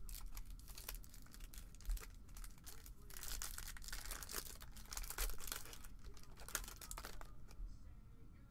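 Foil trading-card pack wrapper being torn open and crinkled by hand. It makes a dense run of crackles that thins out near the end.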